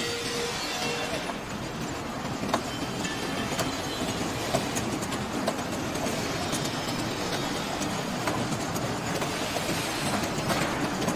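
French fry cooling machine running, its wire mesh belt conveyor carrying cut fries: a steady mechanical running noise with scattered light clicks.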